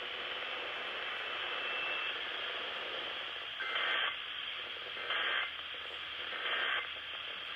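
Emergency Alert System end-of-message tones received over radio: three short bursts of data warble, each under half a second and about a second and a half apart, over steady radio hiss. The three bursts signal the end of the alert.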